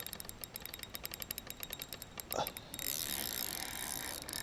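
Fishing reel clicking rapidly and evenly while a heavy snapping turtle is fought on the line, with a brief louder sound about two and a half seconds in.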